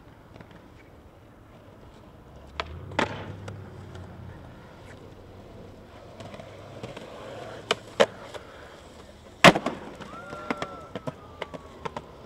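Skateboard on concrete: wheels rolling with a low rumble and several sharp cracks of the board hitting the ground, the loudest about two-thirds of the way in. A thin falling whine follows near the end.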